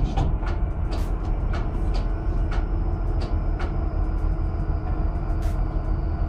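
Deck noise of a stern trawler hauling its net up the stern ramp: a loud, steady deep rumble of machinery and sea, with scattered sharp knocks about every half second to a second.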